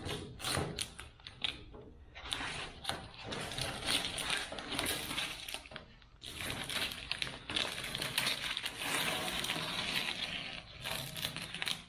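Blue painter's masking tape being peeled off a freshly spray-painted car body and crumpled in the hands: a run of ripping and crinkling, with brief pauses about two and six seconds in.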